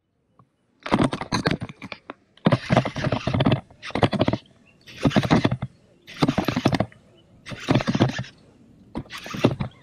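Rhythmic rustling and scraping of a shirt sleeve rubbing against a chest-mounted action camera, starting about a second in and coming about once every second and a half as the angler's arm sweeps back and forth while he hauls a fish in on a baitcasting rod.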